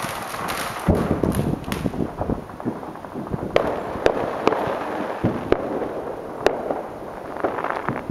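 Aerial fireworks shells bursting in a professional display: a quick run of booms and crackling, thinning to scattered sharp bangs in the middle and picking up again near the end.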